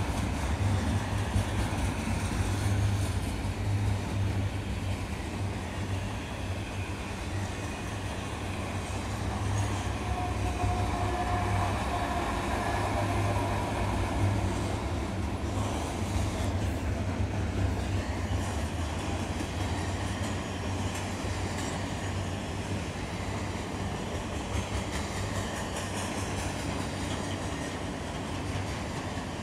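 Double-stack intermodal freight train rolling past: a steady rumble of steel wheels on the rails. About midway a mid-train Canadian Pacific diesel locomotive passes, adding its engine's steady tones.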